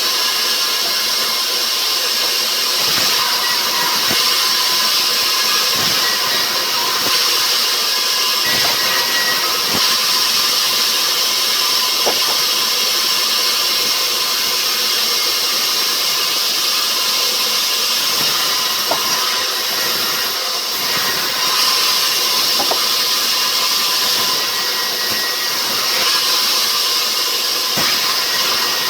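Rubber wood sawmill machinery running steadily: a loud, continuous high rushing noise with a faint steady whine and a few scattered clicks.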